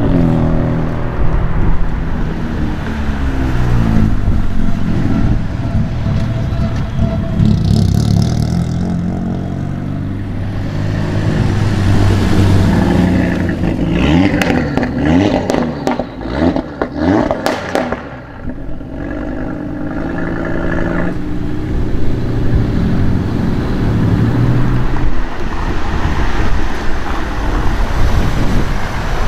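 Sports car engines running and revving as cars pull through, the pitch rising and falling. A cluster of sharp cracks sounds around the middle.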